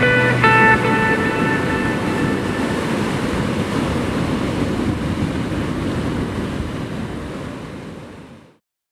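The last notes of guitar music ring out over the first second and a half, leaving a steady wash of sea waves that fades out just before the end.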